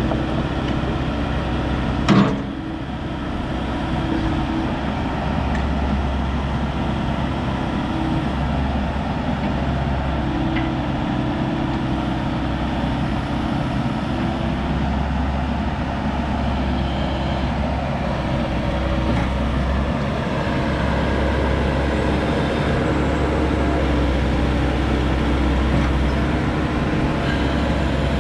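Volvo ECR88D compact excavator's Volvo D2.6H diesel engine running steadily while the boom and bucket are worked, with one sharp knock about two seconds in.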